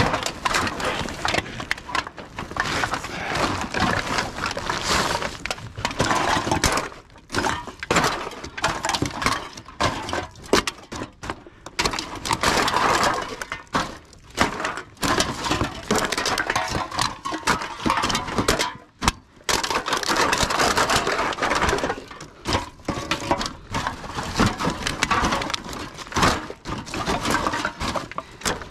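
Empty aluminium drink cans and plastic bottles clattering and crinkling as they are tipped and tossed by hand out of a cardboard box into a woven bulk bag: an irregular, near-continuous run of tinny knocks and crackles with brief pauses.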